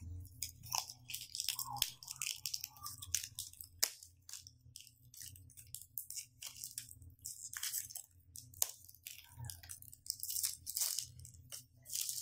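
Clear plastic shrink-wrap being peeled off a smartphone box and crumpled by hand: irregular crinkling and crackling.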